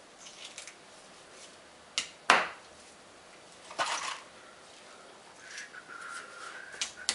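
Hammer tapping plastic wall plugs into holes drilled in a brick wall: two sharp knocks about two seconds in, the second the loudest, and another near four seconds.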